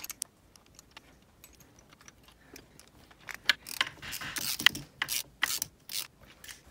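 Hand ratchet clicking in short runs: a few scattered clicks at first, then a busier run of clicks through the second half, as a fitting is worked on beside the throttle body.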